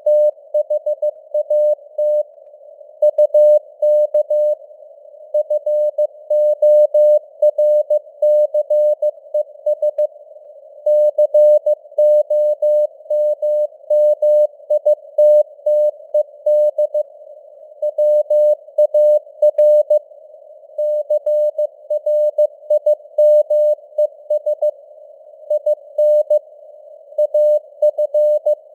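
Morse code (CW) at 15 words per minute: a tone of about 600 Hz keyed on and off in dots and dashes, over faint simulated radio noise, with the signal strength fading up and down (QSB).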